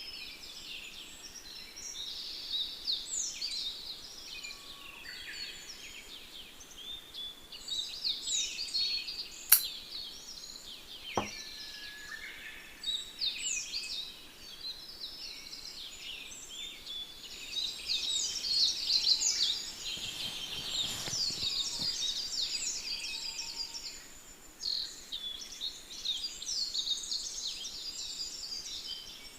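Many small birds chirping and singing, with calls overlapping throughout. There is a single sharp click about ten seconds in and a brief soft rustle about twenty seconds in.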